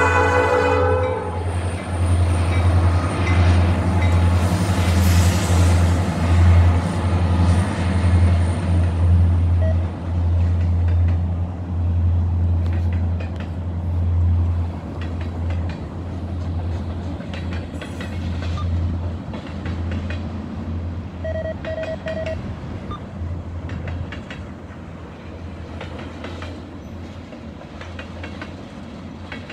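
Norfolk Southern freight train: a horn note ends about a second in, then the freight cars roll on with a steady low rumble and scattered wheel clicks, slowly fading as the train goes into the tunnel.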